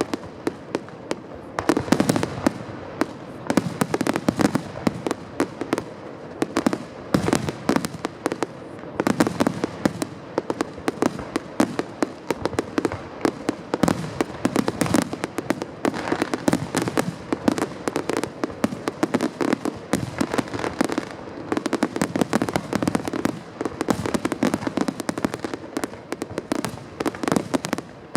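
Large aerial fireworks display: a dense, continuous barrage of shell bursts and crackling, many overlapping bangs a second, swelling in heavier waves every few seconds.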